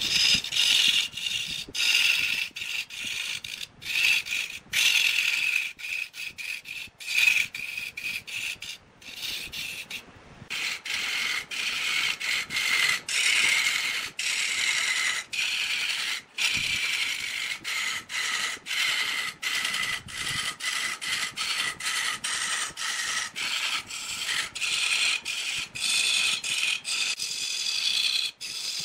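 Turning tool cutting into a spinning wooden blank on a lathe: a steady scraping squeal whose pitch drifts a little, broken by many brief drop-outs.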